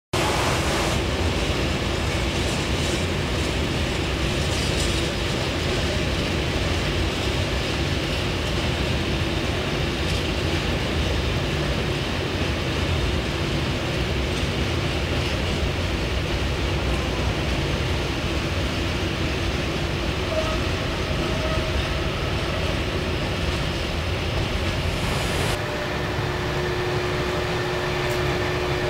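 Electric-hauled freight train rolling past: a steady rumble of wagon wheels on the rails with a faint steady hum. About 25 seconds in, the sound changes abruptly to a smoother rolling with a clearer steady hum as a different train's electric locomotive passes.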